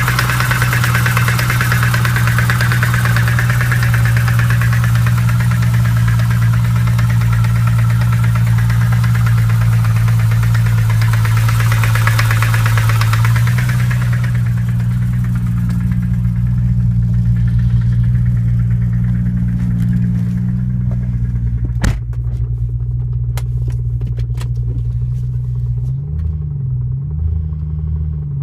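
BMW E92 M3's 4.0-litre V8 running at a steady idle, with a knocking noise from the engine that the owner is trying to show. A higher hiss over the engine fades away part way through, and a sharp click comes about two-thirds of the way in, followed by scattered ticks.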